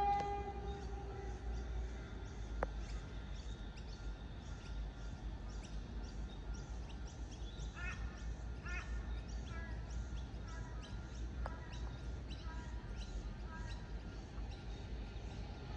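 A train horn's chord fades out in the first second. Then there is faint outdoor ambience with a low rumble, and a few short bird caws, crow-like, around the middle.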